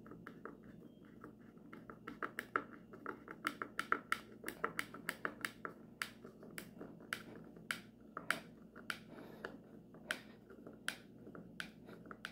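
Screwdriver turning a screw by hand into a plaque's back plate: a run of sharp clicks, quick and close together about two to six seconds in, then slower and more spaced out.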